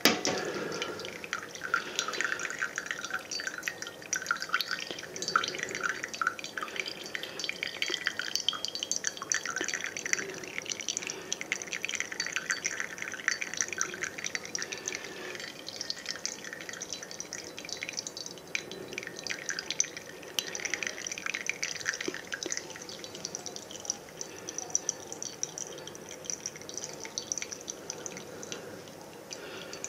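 Brewed coffee dripping and trickling from a flannel drip filter into a ceramic mug: an irregular patter of small drips and splashes. A single sharp knock right at the start.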